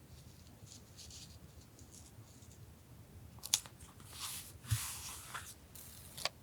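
Scissors cutting paper: faint paper rustling, then a few crisp snips with sharp clicks of the blades in the second half.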